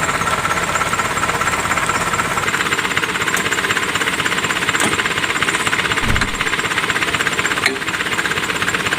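Engine of an off-road oil palm fruit hauling vehicle running steadily, with a fast, even knocking beat. A low thud comes about six seconds in.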